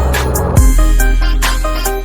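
Background music with a heavy bass line and electronic beat.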